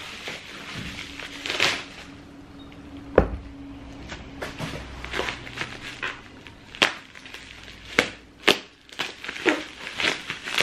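Clear plastic shoe bag crinkling and crackling as it is handled and cut open, with scattered sharp clicks and a dull thump about three seconds in.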